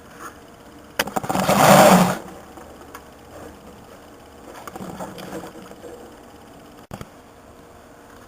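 Handling noise from small iPod parts: a loud rustling noise lasting about a second, starting about a second in, then fainter handling sounds.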